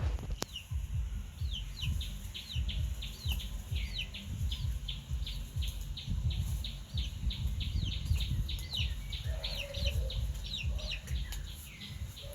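Birds chirping in a rapid, unbroken run of short, high, falling cheeps, several a second, over a low rumbling noise.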